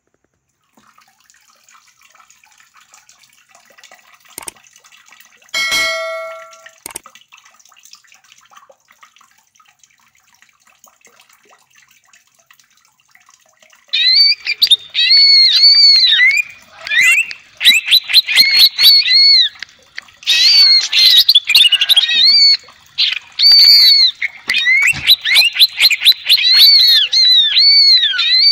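Green leafbird (cucak ijo) singing loudly in rapid chains of high, arching whistled notes with short breaks, starting about halfway through. Before that there is only faint sound and a single ringing ding about a fifth of the way in.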